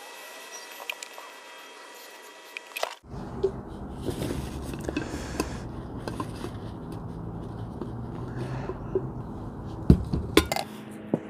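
Glass coffee carafe clinking and scraping as a rubber oil seal is pulled out of it and wiped in a paper shop towel, with a few sharp knocks of glass about ten seconds in. A steady low rumble sits behind the handling from about three seconds in.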